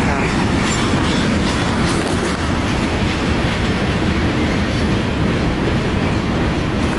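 CN freight train's rail cars rolling past close by: a loud, steady rumble with the wheels clicking over the rail joints.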